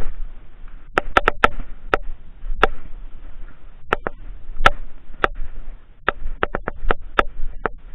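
Irregular sharp clicks and knocks of hard plastic gear being handled, some in quick runs of three or four.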